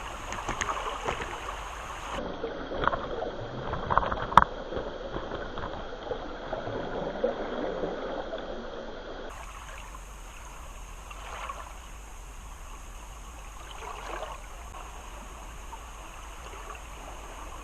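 Lake water sloshing and lapping, with a sharp click about four seconds in. The sound changes abruptly twice, about two seconds in and about nine seconds in, as it cuts between recordings.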